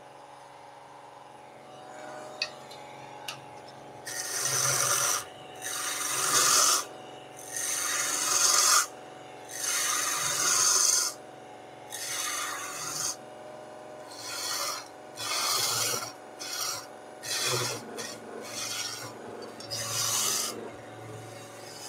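Wood lathe running with a steady hum while a hand-held turning tool cuts into a long spinning spindle. Starting about four seconds in, there are about a dozen separate cuts, each a rush of noise lasting around a second.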